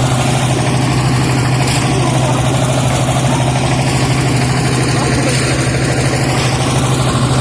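An engine running steadily: a constant low hum with an even hiss of noise over it.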